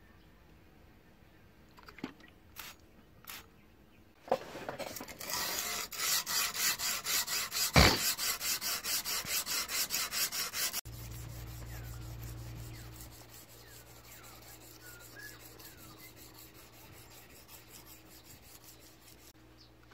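A few short spritzes from a glass-cleaner spray bottle, then rhythmic hand-sanding strokes across a steel axe head cut from a circular saw blade, about three strokes a second, with one sharp click in the middle. The strokes stop suddenly and give way to a quieter steady low hum with faint bird chirps.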